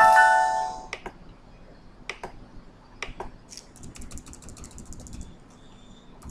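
A Windows system alert chime with several pitches dies away in the first second as an error dialog box appears. Then computer keyboard keystrokes follow: scattered single clicks, a quick run of keys a few seconds in, and more clicks near the end.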